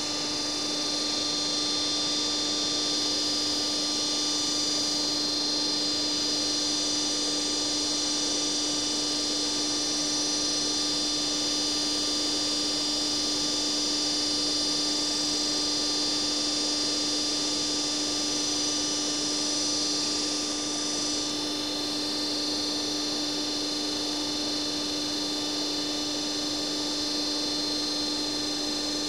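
Trumpf Trumatic 120 Rotation CNC punch press running without punching: a steady hum with a high whine over it and no strokes. The high whine eases slightly about two-thirds of the way through.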